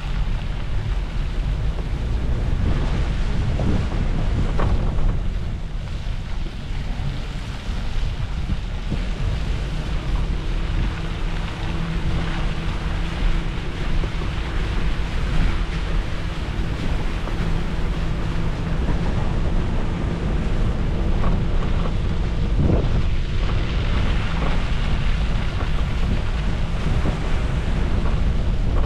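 Wind buffeting the microphone over the low rumble of a vehicle on the move, with a faint steady engine hum showing through in the middle and a couple of brief knocks.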